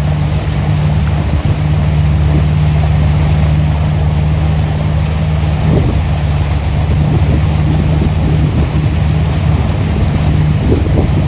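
Wakesurfing tow boat's engine running steadily under way, a low even drone, with water rushing past the hull and wind buffeting the microphone.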